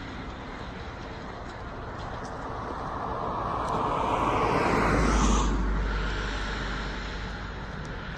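A car driving past on the paved road. The tyre and engine noise builds to a peak about five seconds in, drops in pitch as the car passes, then fades away.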